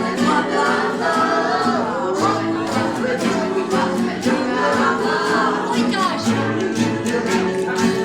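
Group of voices singing a playful chant together in loose improvisation, with many overlapping sung lines and sharp percussive sounds mixed in, coming more regularly near the end.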